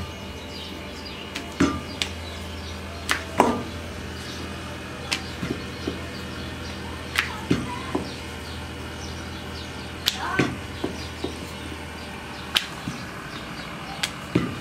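Dough being rolled out with a wooden rolling pin on a round rolling board (chakla), with about a dozen sharp, irregular knocks and clacks of the pin and board over a steady low hum.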